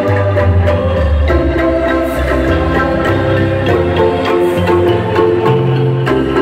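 Kolintang ensemble of wooden xylophones playing a tune, the notes sustained by quick repeated mallet strokes over deep bass notes.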